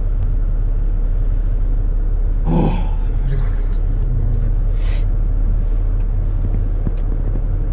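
Steady low rumble of a car heard from inside the cabin, with two brief breathy sounds, about two and a half and about five seconds in.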